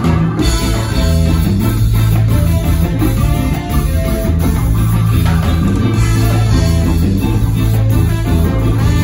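Live ska-jazz band playing an instrumental passage, with a steady bass line and guitar to the fore.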